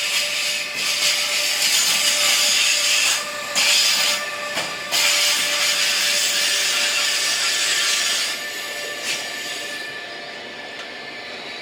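Passing train's wheels squealing on the rails: several steady squeal tones over loud rolling noise, with two brief dips around three and a half and four and a half seconds in, growing quieter after about eight seconds.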